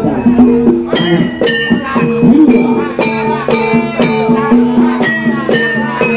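Javanese gamelan-style accompaniment: struck, ringing pitched notes in a repeating pattern, with drum strokes between them.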